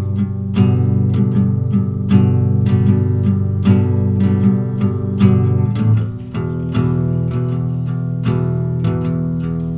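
Background music carried by guitar, with plucked notes over sustained low tones.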